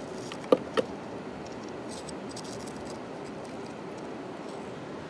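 Metal blade scraping into gravel in a bedrock crevice. Two sharp clicks come about half a second in, followed by faint gritty scratching and ticking, over a steady rushing noise.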